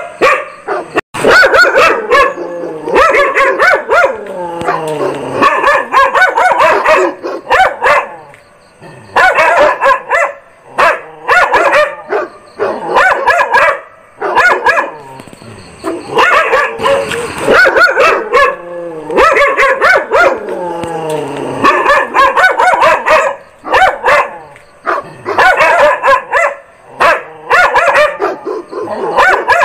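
A dog barking loudly in quick runs of barks, with short pauses between runs.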